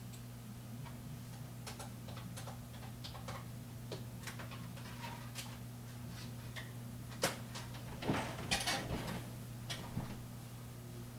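Irregular light clicks and taps, with a sharper one about seven seconds in and a short cluster just after, over a steady low electrical hum.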